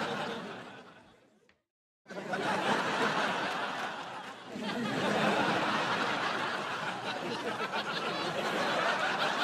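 Sitcom laugh track of a studio audience laughing. One laugh dies away over the first second and a half, and after a short gap of dead silence a second burst of audience laughter starts abruptly about two seconds in. It dips briefly around four seconds, then swells again and carries on.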